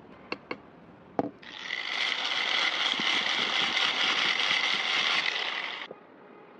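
A few light clicks, then a power sander's pad sanding the wooden handle of a meat cleaver: a steady, hissing rasp for about four seconds that stops abruptly.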